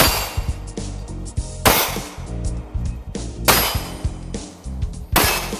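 Background music with four loud, sharp hits spaced evenly, roughly every second and three quarters.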